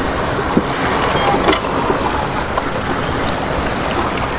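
Steady wind noise on the microphone over the wash of sea surf, with a couple of light clicks about a second and a half in.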